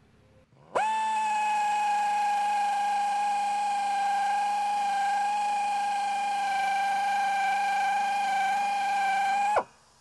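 Low-speed tire buffer fitted with a buffing rasp, running against the inner liner of a tire to buff the area around a puncture ready for a repair unit. It spins up quickly about a second in, holds a steady whine, and stops abruptly near the end.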